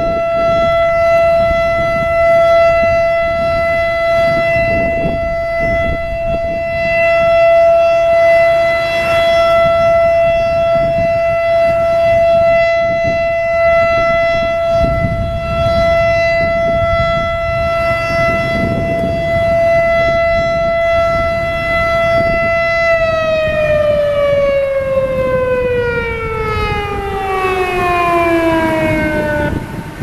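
American Signal Alertronic AL-8000 electronic outdoor warning siren sounding its steady alert tone for about twenty seconds, then sliding down in pitch over several seconds and cutting off near the end, activated for a tornado.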